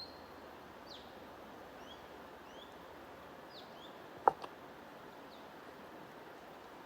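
Small songbirds chirping briefly every second or so over a steady rushing noise of flowing water. About four seconds in comes a single sharp click, the loudest sound, followed by a fainter one.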